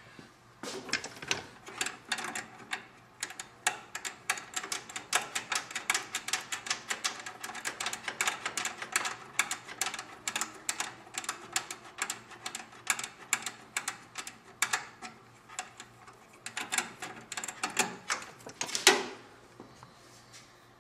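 Rapid, irregular clicking and ticking of small hard parts being worked by hand, several clicks a second, thinning to a few scattered louder clicks near the end.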